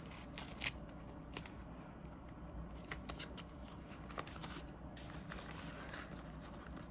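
Paper bills and a clear plastic zipper pouch rustling faintly as cash is folded and slipped into the pouch, with scattered soft clicks and crinkles.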